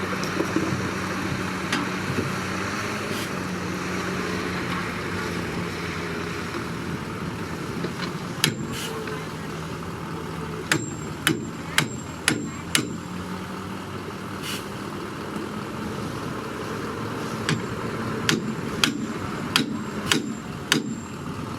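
Bulldozer diesel engine running steadily, with sharp, ringing metallic clanks coming in quick runs of about two a second, first about eight seconds in and again near the end.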